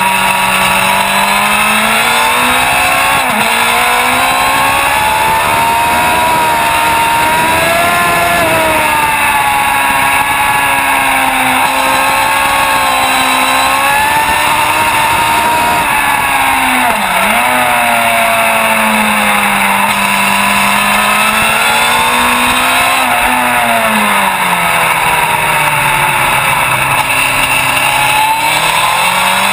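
Onboard sound of a racing motorcycle's engine at race speed, its pitch climbing and falling as the rider accelerates, shifts and brakes for corners, with a long drop in revs near the end under braking. There is constant wind rush over the microphone.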